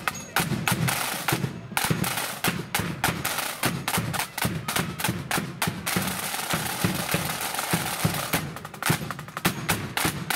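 Marching band's snare drums playing a rapid street beat, many sharp strokes and rolls, with bass drum hits underneath.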